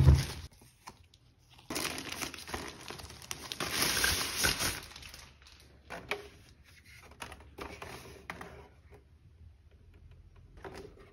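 Plastic protective wrap crinkling as it is handled and pulled off a projector, loudest from about two to five seconds in, after a dull thump at the start. Quieter rustles and light clicks of handling follow.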